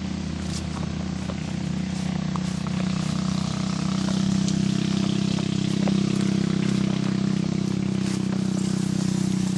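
Motor vehicle engine running steadily and loud, a low even hum that grows a little louder about halfway through.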